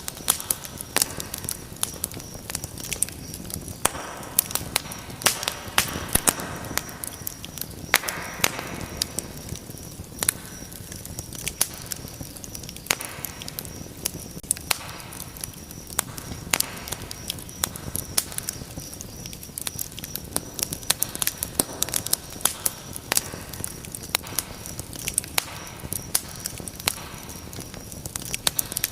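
Wood fire crackling: frequent, irregular sharp snaps and pops over a soft hiss of burning flames.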